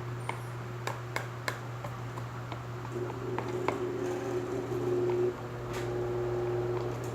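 Glue-and-lotion slime mixture stirred in a bowl: scattered light clicks and squishes of the utensil, over a steady low hum.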